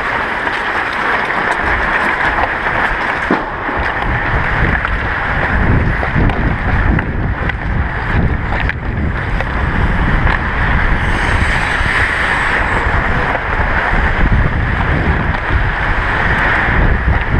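Ice-skate blades hissing and scraping on rink ice, heard from a camera worn by a skating hockey player, with wind rumbling on the microphone that grows stronger about five seconds in. A few faint clicks of sticks or pucks on the ice.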